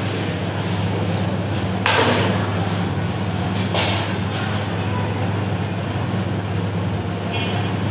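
Whiteboard eraser and marker working on a board over a steady low room hum: a sharp knock about two seconds in, a lighter one near four seconds, and a brief marker squeak near the end.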